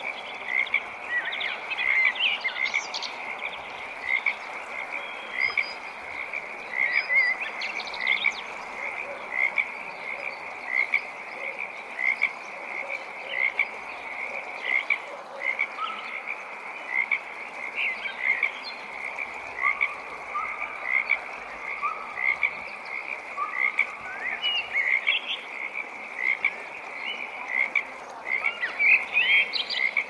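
A chorus of frogs calling at a pond: short calls repeating more than once a second over a dense, steady background chorus.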